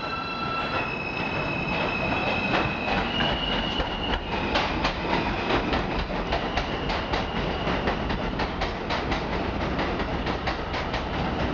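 Alstom R160A-2 subway train accelerating away from a station. Its propulsion whine steps up in pitch in distinct jumps over the first few seconds. From about four seconds in, the wheels clack over rail joints more and more rapidly as it gathers speed.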